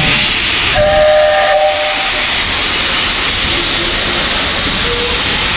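Steam locomotive moving slowly, with a loud continuous hiss of steam venting from its cylinder drain cocks around the wheels. A brief steady two-note tone sounds about a second in.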